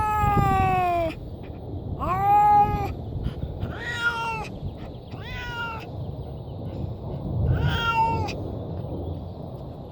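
Domestic cat meowing from inside a cat carrier: five drawn-out meows, the first the longest with a falling pitch, the rest shorter and spaced a second or two apart. The cat is protesting at being shut in the carrier.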